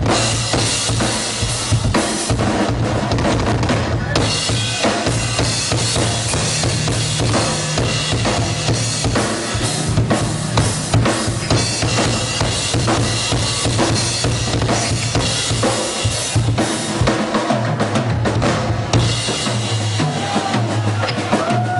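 Live rock drum solo on a full drum kit: fast, continuous kick drum, snare and cymbal hits. It stays loud throughout, and a pitched instrument joins in near the end.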